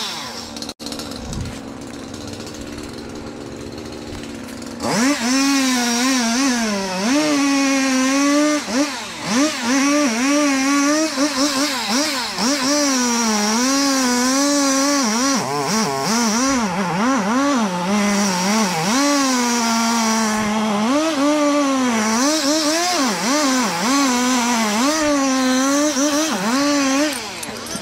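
Two-stroke chainsaw idling. About five seconds in it goes to full throttle for a felling cut, its pitch repeatedly dipping and rising as it cuts. It drops back to idle near the end.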